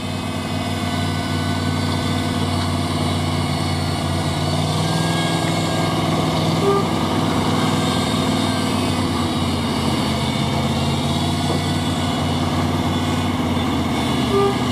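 GAZ-69 engine running steadily under load as the jeep grinds through a deep swamp rut, its revs lifting a little about five seconds in.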